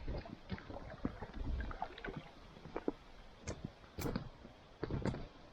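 Irregular handling noises of fishing gear: scattered clicks and knocks, with a few heavier low thumps about a second and a half in and again near the end.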